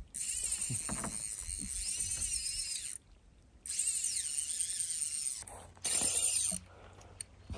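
Fly reel's click-and-pawl drag buzzing as a hooked big trout pulls line off. It comes in three runs, a long one of about three seconds, a shorter one, then a brief one near the end, and the pitch wavers as the spool speeds and slows.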